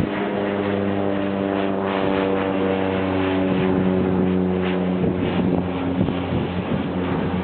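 Boat engine running with a steady, low, pitched drone, with wind noise on the microphone.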